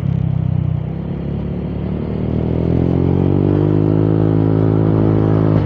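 Honda Click 125i scooter's single-cylinder engine running under way: it eases briefly about a second in, then its pitch rises steadily as it accelerates and levels off near the end.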